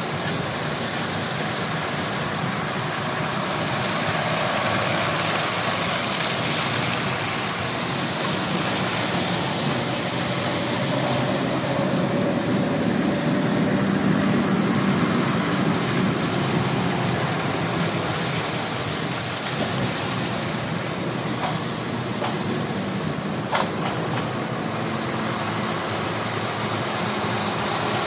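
Heavy articulated lorries driving slowly past on wet tarmac: diesel engines running under a steady wet hiss from the tyres, the engine rumble growing louder in the middle as a lorry comes close. A single sharp click near the end.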